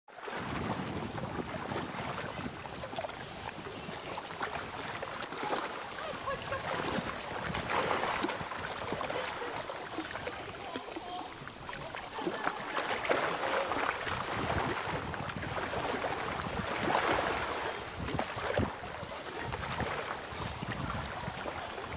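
Lakeshore ambience: water lapping against the rocks and gusts of wind, rising and falling in swells every few seconds.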